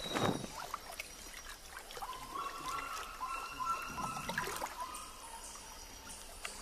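Forest ambience with trickling water and scattered faint clicks; a wavering high tone holds for about three seconds, starting about two seconds in.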